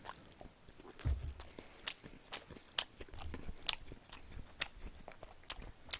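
A man chewing a mouthful of food close to a microphone, with irregular mouth clicks and smacks a few times a second.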